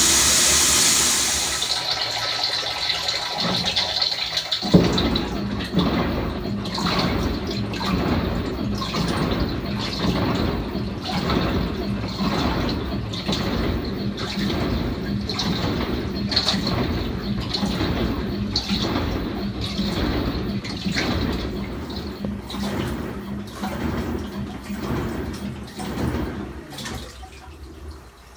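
LG WT7800 top-load washer on its tub-clean cycle. Water pours hard into the tub at the end of the second fill and stops about a second in. A few seconds later the rinse agitation starts, churning and sloshing the water in strokes about once a second.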